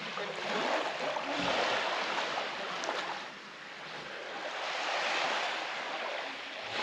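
Small waves washing up onto a sand beach, the surf swelling and easing twice.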